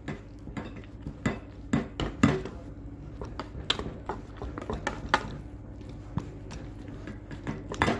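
A utensil clinking and knocking irregularly against a bowl as the banitsa filling of eggs, crumbled cheeses and yogurt is stirred with the oil just added.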